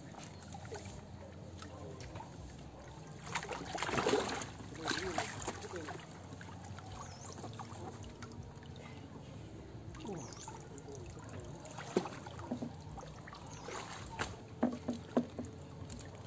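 Pond water sloshing and splashing around a homemade styrofoam boat as someone tries it out, with faint voices. A louder splashy stretch comes about four seconds in, and a few sharp splashes or knocks come near the end.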